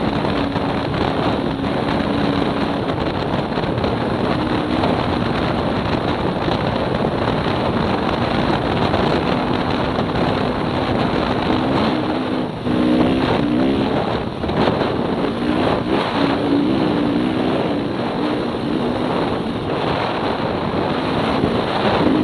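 Dirt bike engine running hard at high speed, with heavy wind noise on the microphone. The engine note wavers, with brief throttle-offs and pickups about 12 to 15 seconds in.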